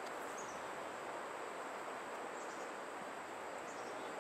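Steady outdoor ambience: an even hiss with a thin, steady high-pitched whine above it, with no distinct events.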